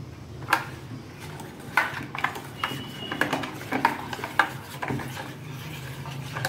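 Steel spoon stirring and scraping around a steel bowl of milk mixed with custard powder, with irregular clinks against the bowl's sides. The custard powder is being mixed into cold milk to break up lumps before cooking.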